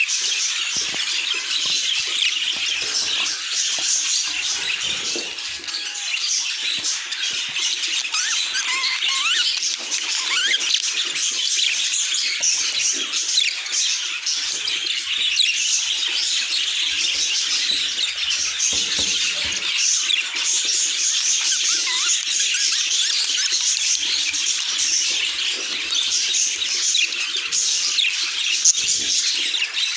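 Budgerigars chattering and warbling without a break: a dense mix of quick chirps and short rising and falling whistles.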